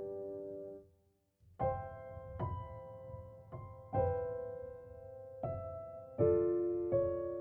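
Background music of slow, soft solo piano, with chords struck one after another and left to ring and fade. It breaks off for a moment about a second in.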